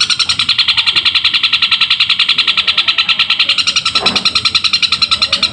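Long-tailed shrike (cendet) singing an unbroken run of tree-sparrow mimicry: rapid, even chattering notes at about a dozen a second.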